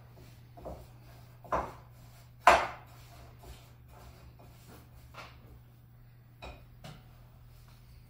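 Utensil knocking and scraping against a glass mixing bowl while margarine and sugar are creamed by hand: half a dozen short, sharp knocks at uneven intervals, the loudest about two and a half seconds in. A steady low hum runs underneath.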